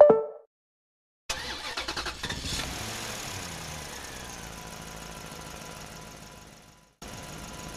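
Dubbed-in vehicle engine sound effect: an engine starts with a quick run of pulses about a second in, then runs steadily and fades out; after a short gap it starts running again near the end.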